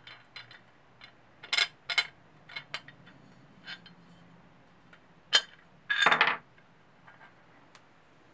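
Light clinks and clicks of a cast-aluminium engine side cover being handled as a paper gasket is fitted to it, with a sharp knock and then a louder clatter of metal against the workbench about six seconds in.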